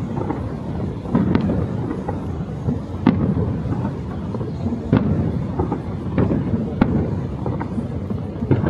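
Aerial fireworks going off: sharp bangs every second or two over a continuous low rumble of bursts echoing around them.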